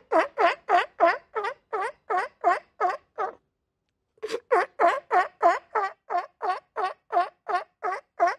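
Sea lion barking in rapid runs of about three barks a second: a run of around ten barks, a pause of about a second, then a longer run to the end.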